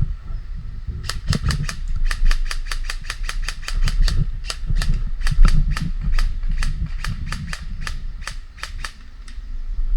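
Airsoft gun firing a long string of rapid single shots, sharp snapping cracks about five a second for most of the time, over a low rumble of wind or handling on the microphone.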